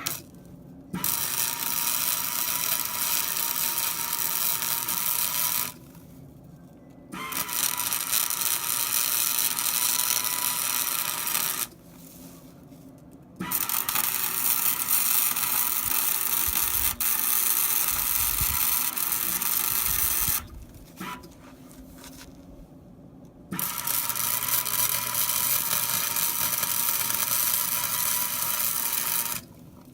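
Welding arc from a Hobart welder crackling steadily as beads are run on steel chain hooks being welded to a skid steer bucket. Four runs of several seconds each, broken by short pauses.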